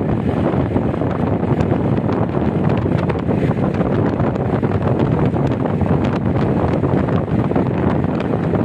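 Wind buffeting the microphone as it is held out of a moving vehicle, a steady loud rush with road and vehicle noise underneath.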